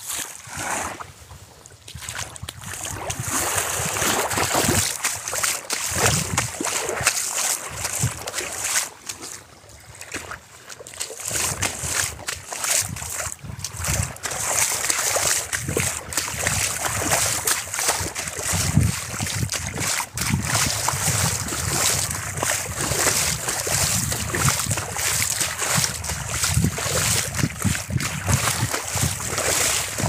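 Lake water lapping and splashing in the shallows at the shoreline, with gusty wind rumbling on the microphone.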